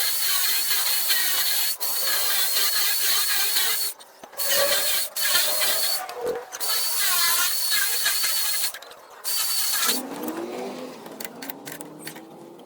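Metalworking noise: a harsh, hissing cutting or grinding sound with a steady high whine, in stretches of about two seconds broken by short pauses. About ten seconds in it gives way to a quieter machine sound whose pitch rises.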